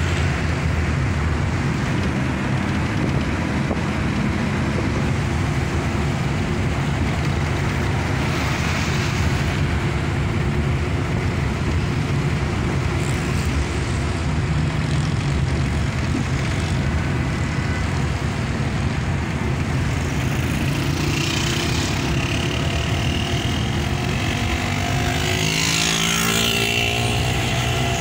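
Vehicle engine running steadily while driving through traffic, heard from inside the cabin with road and traffic noise. Near the end, a few sounds that slide up and down in pitch rise over it.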